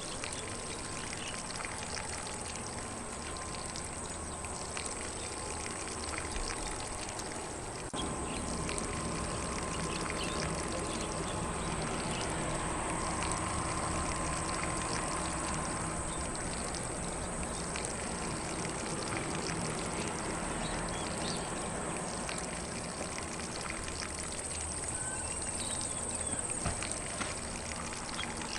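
Lawn sprinkler spraying water across grass in a steady hiss and patter, getting slightly louder about eight seconds in, with faint occasional bird calls.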